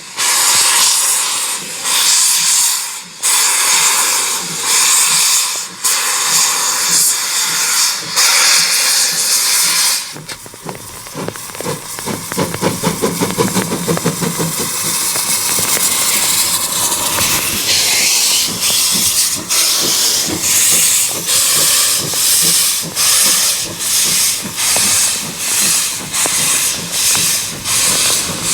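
Steam locomotive hissing loudly with escaping steam, broken by short gaps. About ten seconds in the hiss drops and a rhythmic beat of roughly one pulse a second takes over.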